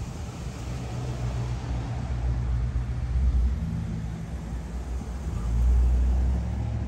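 A low rumble with a faint steady hum underneath, swelling about three seconds in and again around five and a half seconds.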